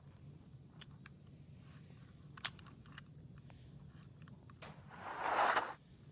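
Toy trains being handled on a wooden floor: a few small clicks and taps, then about five seconds in a rustling rush of noise lasting about a second as the covering is pulled off the wagon's hidden load.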